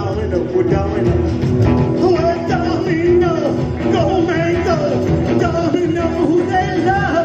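Live rockabilly band playing: upright bass, drums and electric guitar, with a man singing lead.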